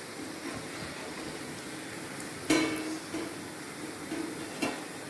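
Samosas deep-frying in hot oil with a steady sizzle, and a metal slotted spoon knocking against the pan as they are scooped out: a sharp ringing clank about two and a half seconds in and a lighter one near the end.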